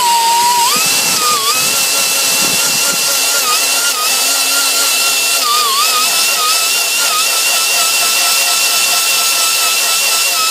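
High-RPM rotary tool spinning a white 120-grit Roloc bristle disc lightly over a cast iron engine block's head gasket deck, cleaning off old gasket residue. It gives a steady, loud whine that rises in pitch about a second in and dips briefly now and then.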